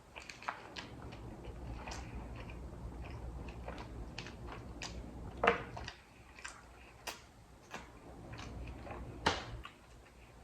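Handling and eating sushi: scattered light clicks and taps, with two louder knocks about five and a half and nine seconds in.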